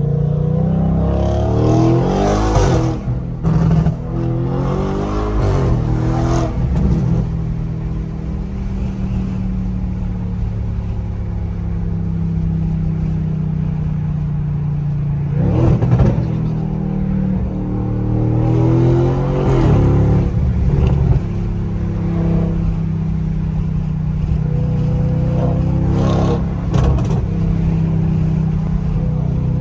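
Audi S8's twin-turbo V8 with catless downpipes and a large aftermarket intake, accelerating hard in several pulls, its pitch climbing and falling back about five times over a steady low engine drone.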